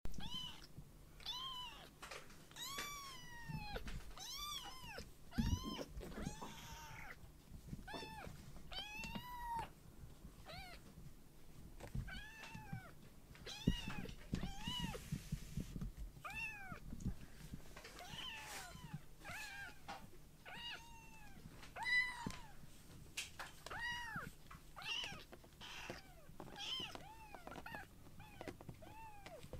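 A young kitten meowing over and over in short, high-pitched mews, about one or two a second, begging for food because it is hungry.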